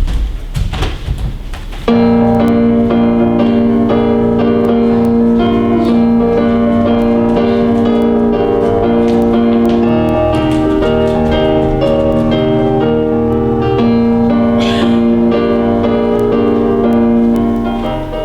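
Audience applause for about two seconds, then keyboard music starts abruptly and plays steadily with long held chords.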